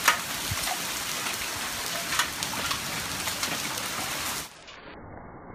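Hail pelting a swimming pool's water and the paving around it: a steady hiss dotted with sharp ticks of single stones striking. About four and a half seconds in the sound turns suddenly quieter and muffled, as slowed-down slow-motion audio.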